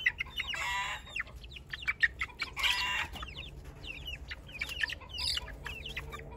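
A group of young chickens peeping with rapid, short, high chirps, with two louder, longer calls, one about half a second in and one near the three-second mark.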